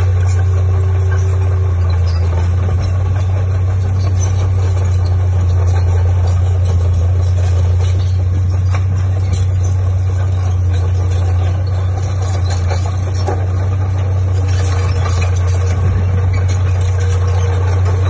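Diesel engine of heavy earthmoving equipment running steadily with a deep, constant drone, its pitch unchanging throughout.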